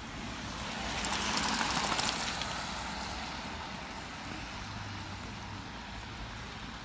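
A car passing on a wet road: tyre hiss swells about a second in and fades away by about three seconds, over steady outdoor background noise.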